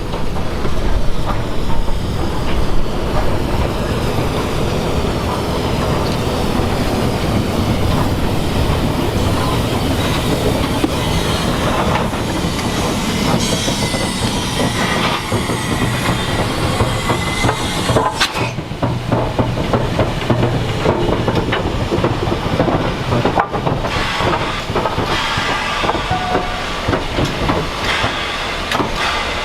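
Train running along the track: a continuous rumble of wheels on rail with scattered clicks, and a faint thin wheel squeal partway through.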